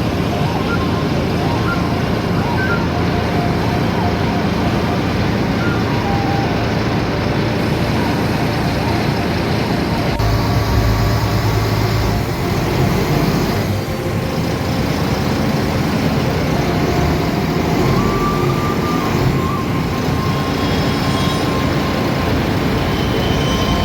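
A boat's engine running steadily, its low rumble getting louder about ten seconds in.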